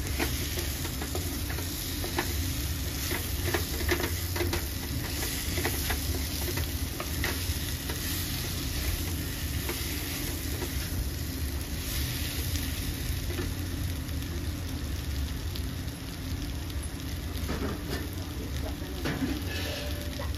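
Potato and eggplant pieces sizzling as they fry in spiced oil in a nonstick pan, stirred with frequent scrapes and clicks of the utensil against the pan.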